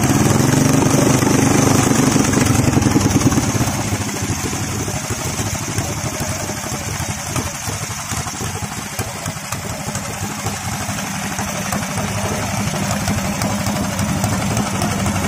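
Small engine of a model racing boat, pull-started by its cord, catching at once and running loud with its pitch sinking over about three seconds. It then settles to a quieter, steady run.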